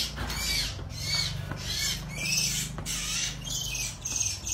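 A rodent caught by a cat squealing in distress: short high-pitched squeaks repeated about twice a second.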